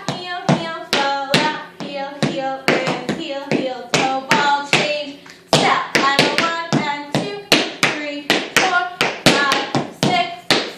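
Tap shoes striking the floor in quick, rhythmic clicks, over a music track with a melody.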